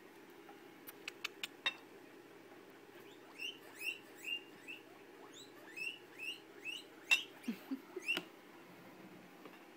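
Guinea pig wheeking, begging for vegetables: a string of short, high, rising squeaks starting about three seconds in. A few sharp clicks come early on and again near the end.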